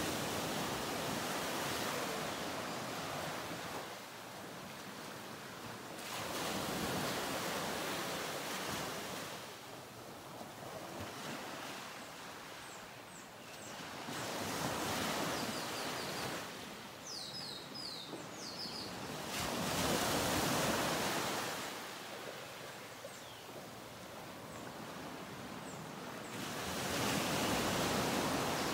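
Ocean surf: waves breaking and washing in, swelling and fading about every six to seven seconds.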